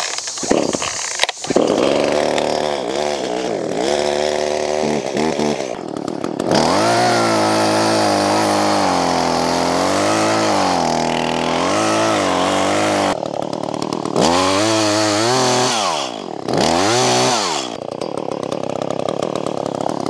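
Gasoline chainsaw revving and then running at full throttle, its pitch sagging and recovering as the chain bites into a large tree trunk. Past the middle the revs drop and climb again twice.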